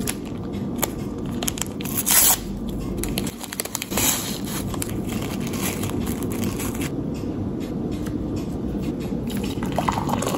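Flo-through paper tea bag being unfolded and handled, paper crinkling and rustling, with two louder bursts about two and four seconds in. Near the end hot water starts pouring into a glass mug.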